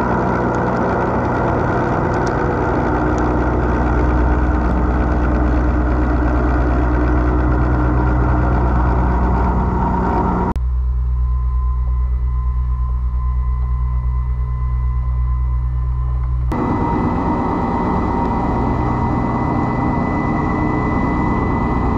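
CNC machining centre rough-milling stainless steel with a high-feed milling cutter: steady cutting and machine noise over a low hum. About ten seconds in it turns suddenly duller and lower for some six seconds, then the brighter cutting sound returns.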